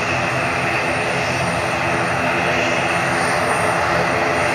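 ATR twin-turboprop airliner taxiing, its two turboprop engines and propellers running at taxi power in a steady, even drone.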